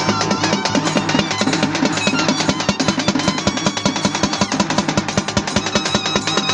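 Karnataka folk vaadya band playing for a Soma Kunitha dance: fast, dense drumming with a high melody over a steady held drone note.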